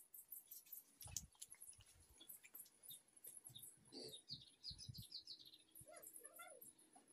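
Very faint pencil scratching on paper as a drawing is shaded, with a few faint bird chirps about four to six seconds in.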